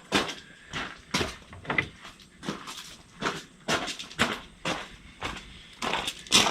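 Hand tools working on the water-pump side of a Polaris 700 twin engine: a run of sharp metallic clicks and knocks, about two a second.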